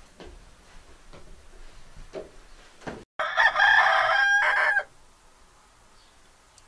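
Faint ticks about once a second, then after an abrupt cut a rooster crows once, loud and about a second and a half long.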